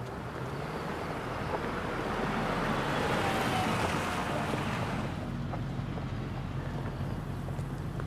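A car drives up close: its engine and tyre noise swells to a peak about three to four seconds in, then eases to a low, steady rumble as it slows alongside.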